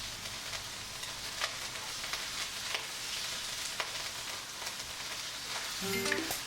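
Ground pork with garlic and onion frying in hot oil in a wok, a steady sizzle broken by a few sharp clicks. Background music comes in near the end.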